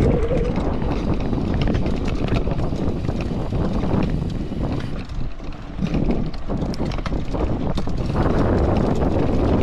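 Mountain bike rolling fast down a loose dirt and gravel trail: tyres crunching over stones with frequent clicks and rattles from the bike, under heavy wind buffeting on the microphone. It gets louder near the end.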